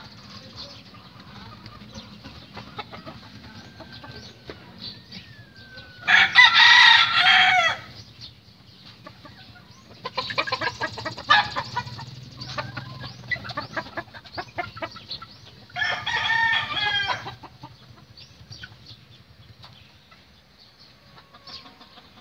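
Rooster crowing twice, about six seconds in and again about ten seconds later, each crow lasting a second or two. Chickens cluck in short, rapid calls between the crows.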